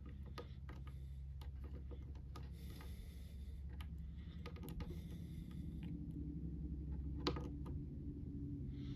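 Small, irregular plastic clicks and taps as an action figure's joints and accessories are posed by hand, with one sharper click about seven seconds in, over a steady low hum.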